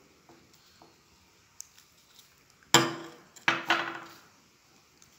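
Two sharp clinks of glass on glass, under a second apart, each ringing briefly as it dies away: a small glass bowl knocking against the glass tabletop or another glass bowl. A few faint taps come before them.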